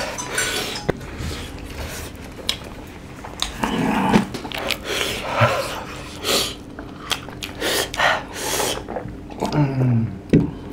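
Men breathing hard and hissing out through their mouths from the burn of spicy noodles, in short bursts with mouth clicks, and a short falling groan near the end.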